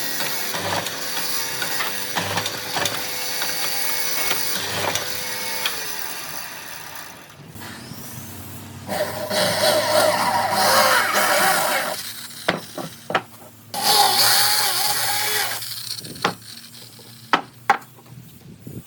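Woodworking tool noise on wood: a steady hum that slides down in pitch and stops about six seconds in, then two loud spells of scraping on wood, each a few seconds long, and a few sharp knocks near the end.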